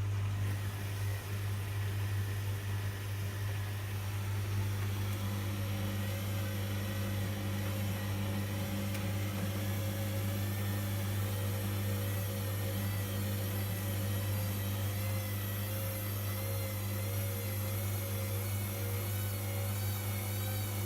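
Whirlpool front-loading washing machine running its wash cycle: a steady electrical hum, joined about five seconds in by a motor whine that wavers up and down in pitch.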